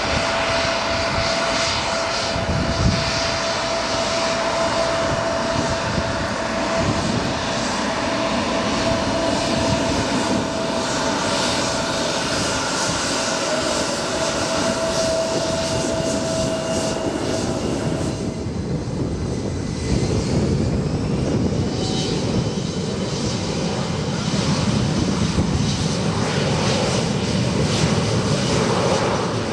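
Airplane engines running at an airport: a steady, loud engine noise with a held whine. The sound changes abruptly about 18 seconds in, and a rising whine follows, as on an engine spooling up.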